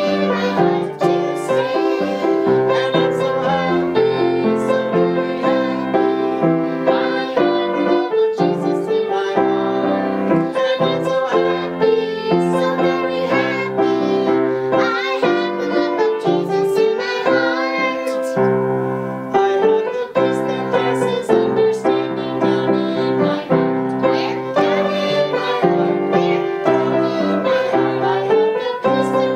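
Three young girls singing a children's song together, accompanied by a piano.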